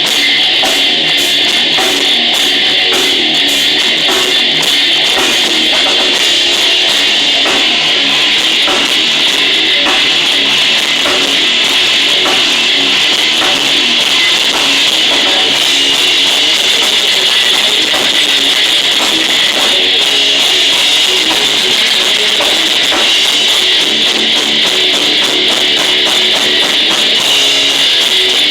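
Live rock band playing loud and steady at a sound check: guitar over a drum kit, with drum hits throughout.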